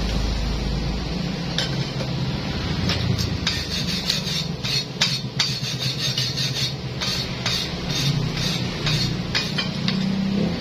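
A hammer striking the freshly welded steel plate along its weld bead, irregular sharp metal-on-metal knocks, several a second, starting about a second and a half in.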